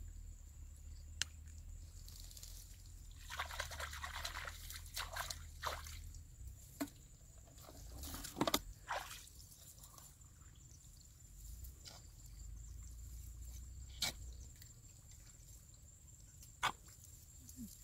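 Hands splashing and scooping in shallow muddy water, with water dripping and trickling, in irregular bursts. A few sharp clicks or knocks stand out, the loudest about halfway through.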